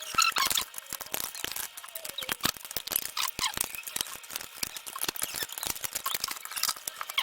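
Dense, irregular clicking with small squeaks from a laptop's plastic case and parts being handled and pried during disassembly.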